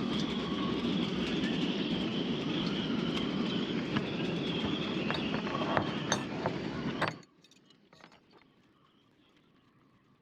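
Strong wind buffeting the microphone through its furry windscreen, a steady rushing with a few clicks. It cuts off abruptly about seven seconds in, leaving a faint background with scattered ticks.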